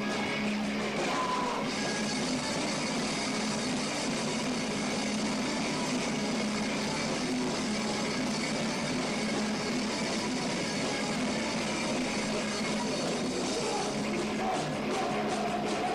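Punk rock band playing live: distorted electric guitar and bass with drums in a dense, continuous wall of sound, with the drum strokes coming through more sharply near the end.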